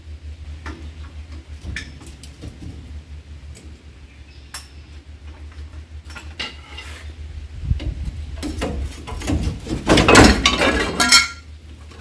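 Steel hand tool clinking and scraping against a rusty leaf spring pack and its clips, in scattered light taps, then a louder stretch of scraping and clanking about nine to eleven seconds in.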